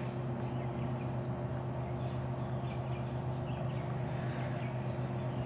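Steady low hum of a 2006 Marvel bar fridge's compressor running, with faint bird chirps in the background.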